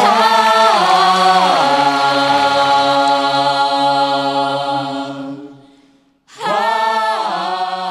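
A group of voices singing a held chord a cappella. The chord steps down in pitch twice early on, fades out about five seconds in, then the same falling phrase begins again about a second later.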